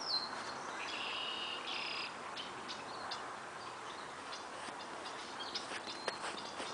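Birds chirping: a high chirping phrase with a quick downward note in the first two seconds, then scattered faint clicks over a steady high hiss.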